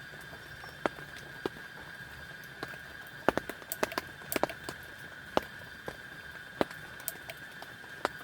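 Scattered sharp ticks and taps at uneven intervals, bunched about three to five seconds in, over a steady high-pitched drone.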